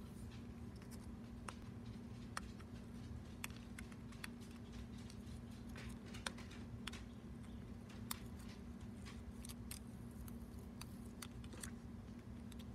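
Scattered faint ticks and crinkles of a vinyl decal's backing paper and clear transfer tape being handled and peeled apart by fingers, over a steady low hum.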